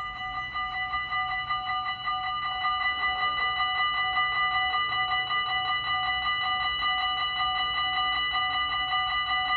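Warning bells of a Dutch automatic level crossing with barriers, two bells ringing fast and without a break, growing louder over the first two seconds and then steady: the crossing signalling an approaching train as its barriers come down.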